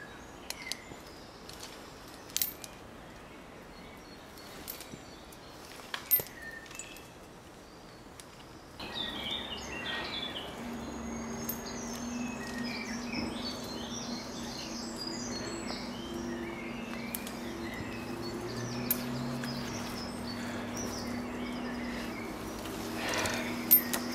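Woodland birds chirping, with scattered sharp clicks and knocks as a climber moves up through a tree's branches on his lanyards. About nine seconds in, the background abruptly gets louder, with a steady low hum under more frequent bird chirps.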